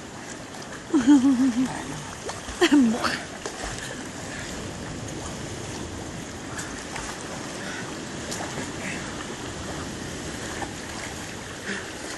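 Shallow seawater sloshing and splashing around a wading man and a swimming Rottweiler. Two loud, short vocal cries stand out: a wavering one about a second in and a falling one just under three seconds in.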